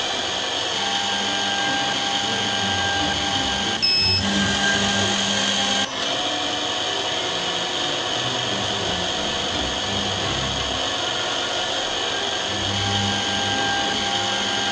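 Lens drilling machine's drill motor running steadily while it drills the holes in a spectacle lens, with a short beep about four seconds in.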